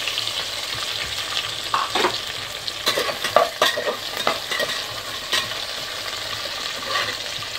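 Freshly added chopped onions sizzling in hot oil in a metal pressure cooker pot. A spatula knocks and scrapes against the pot as they are stirred, mostly in the middle.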